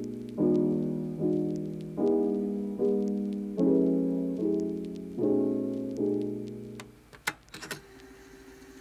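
Background piano music: chords struck about every second, each fading away, stopping about seven seconds in. A few sharp clicks and a faint held tone follow.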